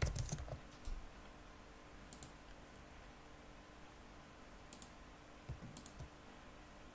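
Computer keyboard typing for about the first second, then a handful of isolated sharp clicks from the keyboard and mouse, some in quick pairs.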